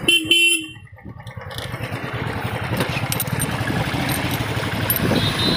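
Motorcycle engine running as the bike rides along a dirt track, growing louder after about a second and a half and then holding steady. It opens with a brief loud steady tone.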